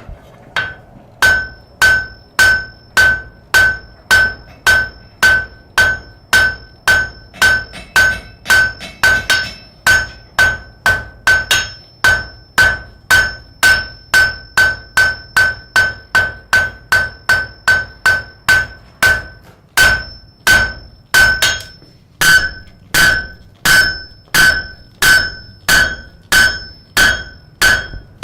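Blacksmith's hammer striking on an anvil in a steady rhythm, about two blows a second, each blow ringing with a clear metallic tone. There is a short break a little after twenty seconds in, then the blows resume.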